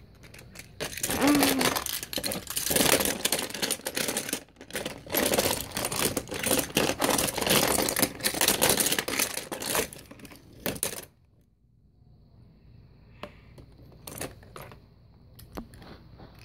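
Toy trains being banged and clattered together in a rapid, noisy jumble of knocks and rattles. About eleven seconds in it stops suddenly, leaving only a few scattered clicks.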